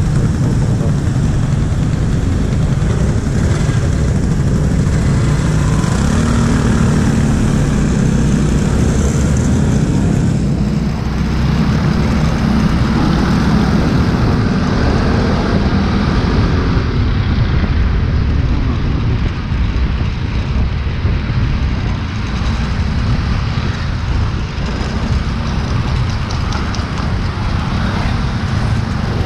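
Motorcycle riding through city traffic, heard from the bike: a steady low rumble of engine and road noise. Some hiss above the rumble fades about ten seconds in.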